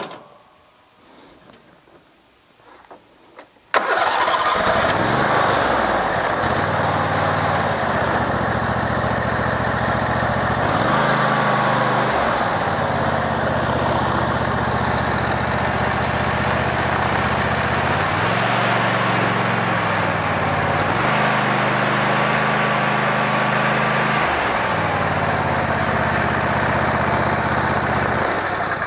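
Zero-turn riding mower's engine starts about four seconds in and runs steadily, its speed stepping up and down several times as the throttle is moved, then dies away at the very end.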